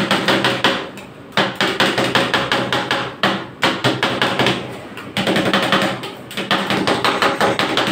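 Two metal spatulas rapidly chopping and scraping ice cream mixture on the frozen steel plate of a rolled-ice-cream machine: bursts of quick clacks a second or two long with short pauses between, over the machine's steady low hum.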